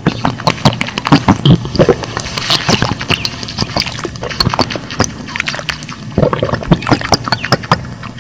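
Water splashing and sloshing in quick, irregular splashes.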